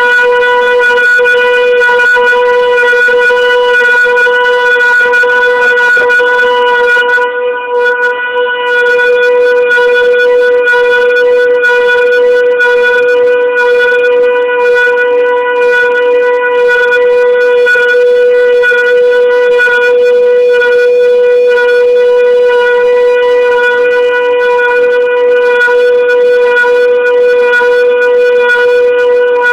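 CNC vertical turning lathe at work, giving off a loud, steady whine held at one fixed pitch, with a brief dip about seven seconds in.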